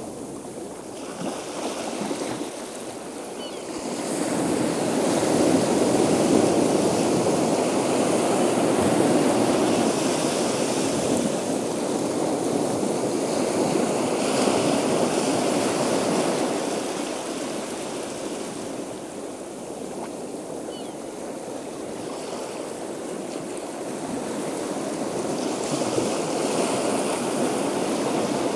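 Ocean surf: a steady wash of breaking waves that swells from about four seconds in, eases off after about sixteen seconds and builds again near the end.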